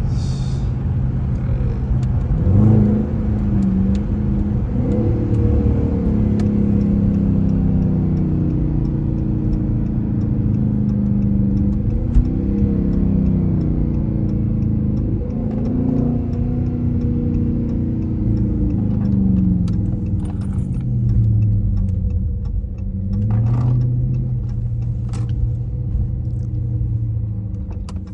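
Dodge car's engine pulling hard, its pitch climbing and then dropping back over and over as it revs up through the gears, under a steady low rumble. A few sharp clicks come through in the second half.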